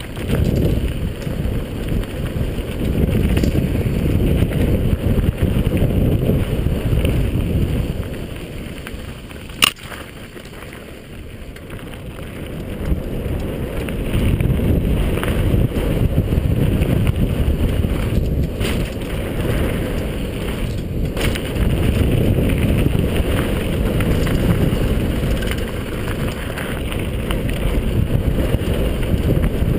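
Downhill mountain bike, a modified Marin Quake 7.3, rolling fast over a dirt and gravel trail: wind buffeting the helmet-camera microphone, with tyre and frame rattle. One sharp click comes about ten seconds in.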